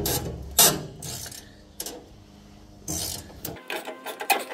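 Ratcheting combination wrench clicking as it turns a nut on a truck-bed bolt, in a few separate strokes, then a quicker run of clicks near the end.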